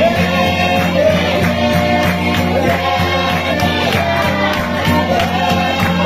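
A crowd singing a John Frum song together in chorus, over a steady rhythmic beat.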